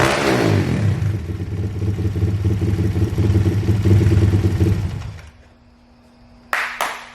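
Thumpstar 190 pit bike's single-cylinder four-stroke engine running and being revved, then fading out about five seconds in. A couple of sharp knocks follow near the end.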